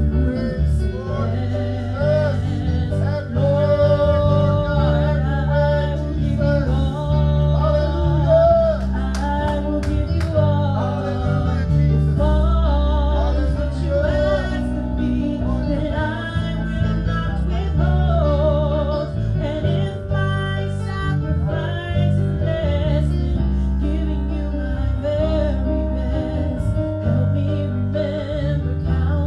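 A woman singing a gospel song into a microphone, backed by instruments with a heavy bass line.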